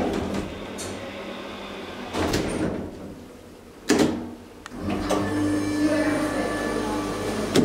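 A sharp click as the car button of a DEVE hydraulic elevator is pressed about four seconds in, then about a second later the elevator's hydraulic pump motor starts and runs with a steady hum.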